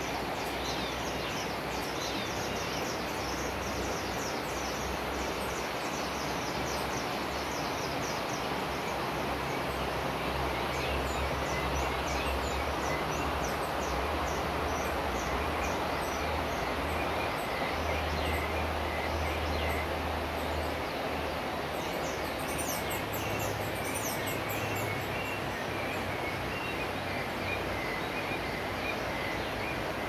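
Many forest birds chirping and singing at once, with quick high calls coming thick and fast throughout, over a steady rushing background noise with a low rumble that swells and fades.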